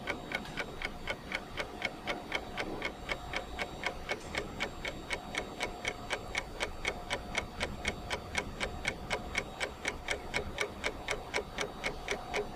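Rapid, even ticking sound effect, about five ticks a second, over a faint steady tone.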